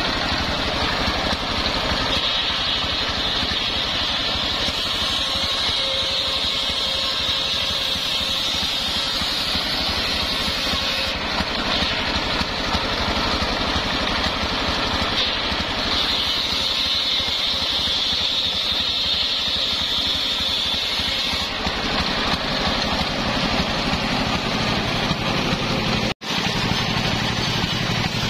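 Single-cylinder horizontal diesel engine running steadily, belt-driving a homemade circular table saw. The blade gives a high singing tone in several stretches as sengon planks are ripped through it. Near the end the cutting stops and only the engine and free-spinning blade are left, with a split-second gap in the sound.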